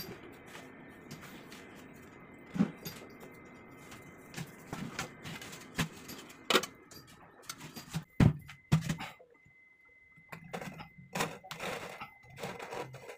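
Irregular knocks and taps of tiling work as a large ceramic wall tile is tapped and pressed into its adhesive bed and checked with a spirit level, the loudest knock about eight seconds in.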